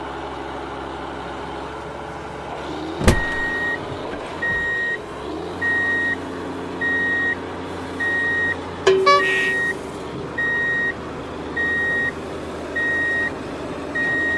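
Toy remote-control dump truck's electric motor running with a steady whir, and its reversing beeper sounding a short high beep about every second and a bit. A sharp click comes about three seconds in, before the beeps start, and another click midway.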